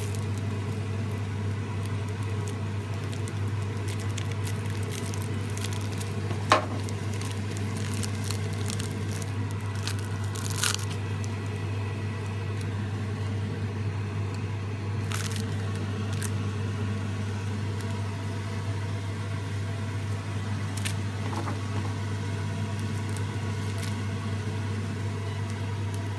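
A steady low hum, with scattered crinkles of plastic film and soft squishing as raw beef burger patties are pressed with fingers and cut with a knife; one sharp click stands out about six and a half seconds in.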